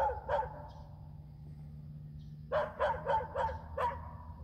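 A dog barking: a couple of barks at the start, then a quick run of about five barks about two and a half seconds in. It is a territorial dog barking from its yard.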